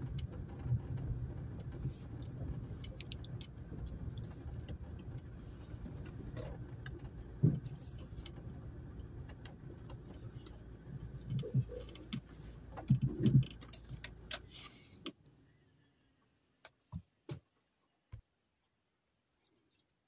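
Car driving slowly on a rough dirt mountain track: a steady low rumble with light rattling and a few louder knocks. The rumble dies away about three-quarters of the way through, leaving a few faint clicks.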